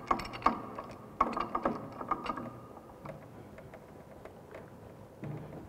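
Wrench clicking and scraping on a threaded pipe fitting as the joint is tightened onto the pump: a quick run of metallic clicks for the first two seconds or so, then only a few faint ticks.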